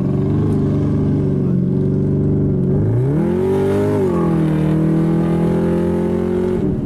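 2005 Pontiac GTO's 6.0-litre V8 engine under acceleration, heard from inside the cabin. The revs climb sharply about three seconds in, fall back a second later, then hold steady before easing off near the end.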